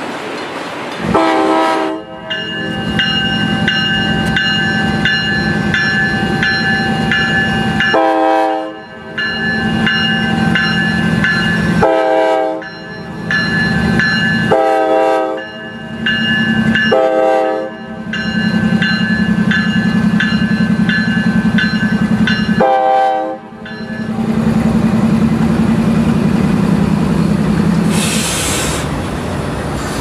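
Diesel freight locomotive horn sounding six separate blasts, most about a second long and two shorter, over a grade-crossing bell ringing about twice a second and the low rumble of the passing train. The bell stops a few seconds before the end, and the rumble fades after it.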